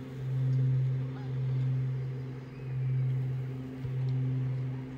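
Base blower fan of an airblown Christmas inflatable running, a steady low electric hum that swells and fades about once a second.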